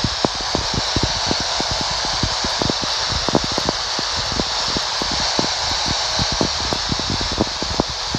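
Uniden PRO-401HH handheld CB radio on channel 6 (27.025 MHz AM) giving out steady static hiss with frequent irregular crackles and pops, with no one transmitting on the channel. The hiss is the bare AM receiver noise of a quiet channel with the band closed and no skip interference.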